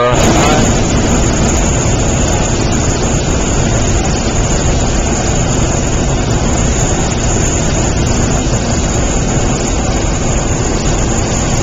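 Hot air balloon's propane burner firing in one long continuous blast: a loud, steady roar that comes on suddenly.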